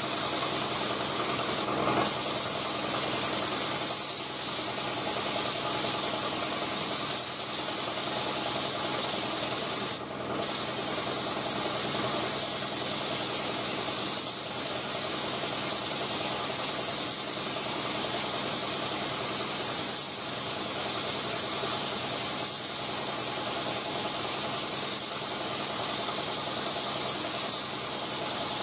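Binks Model 7 siphon-feed spray gun with a 1.8 mm fluid tip spraying a wet coat of single-stage acrylic urethane at about 25 psi: a steady hiss of air and atomised paint. It breaks off briefly twice, about two seconds in and about ten seconds in.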